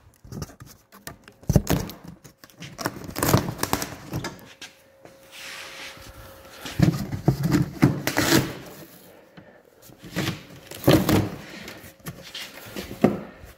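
Cardboard box being opened by hand: irregular scrapes, rustles and knocks as the flaps are pulled back and handled, with short pauses between.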